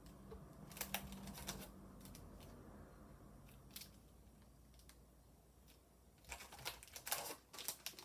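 Paper and plastic packaging of craft supplies being handled: a cluster of crinkles and light taps about a second in, and a longer, louder flurry near the end.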